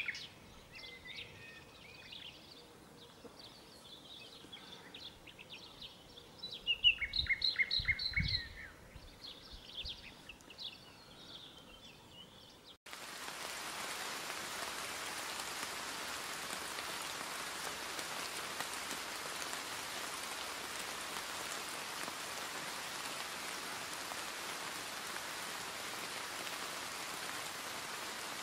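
Birds chirping and singing in a forest, with a louder stretch of song and a low rumble about seven seconds in. About thirteen seconds in it cuts abruptly to the steady hiss of rain.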